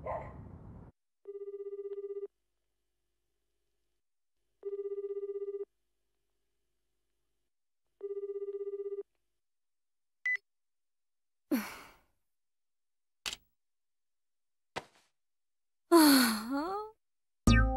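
Telephone ringing tone heard through a mobile phone's earpiece: three identical one-second burrs about three seconds apart, then it stops. A few short clicks follow, and near the end a loud sigh.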